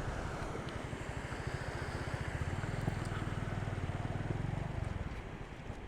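Motorcycle engine running under way, with wind and road noise. The engine note grows stronger about halfway through, then eases off near the end.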